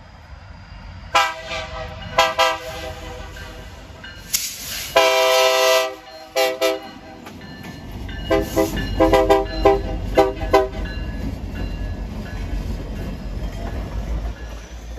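BNSF GP60M diesel locomotive sounding its multi-note air horn in a string of blasts: several long ones, each up to about a second, then a quicker run of short blasts about nine to ten seconds in. A low, steady diesel engine rumble rises in the second half as the locomotive passes close by.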